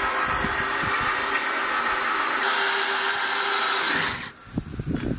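DeWalt 20V cordless drill running into a steel I-beam flange, its motor whining under load. It runs harder and louder from about two and a half seconds in, then stops suddenly about four seconds in, and a few knocks follow.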